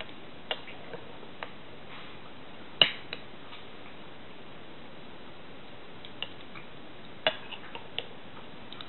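Metal spoon clicking against a porcelain bowl: scattered sharp clinks, the loudest about three seconds in, over a steady background hiss.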